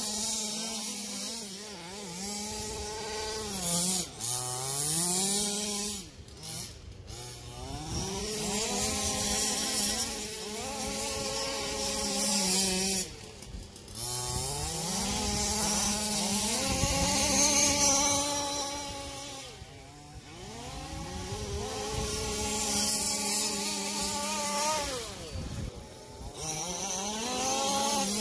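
Small two-stroke engine of a 1/5-scale RC car revving up and down as it is driven, its pitch climbing and falling again and again. It drops away briefly several times when the throttle is let off.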